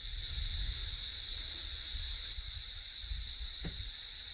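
Chorus of insects, likely crickets, in a steady high trill with a faster pulsing chirp above it, over a low rumble.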